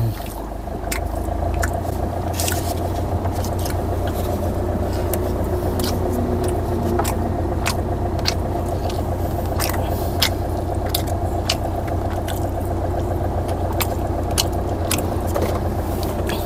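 Steady low hum of a car idling, heard from inside the cabin, with scattered small clicks and scrapes as a wooden spoon works in a paper bowl during eating.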